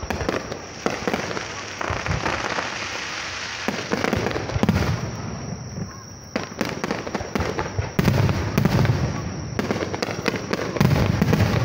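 Aerial firework shells bursting in quick succession: a rapid string of bangs over continuous crackling, building to its loudest volleys about eight seconds in and again near the end.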